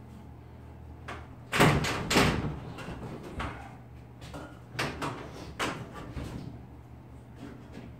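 Wooden kitchen cabinet knocking and scraping against the framing as it is tilted down by hand. Two loud knocks come about a second and a half in, followed by several lighter knocks and scrapes.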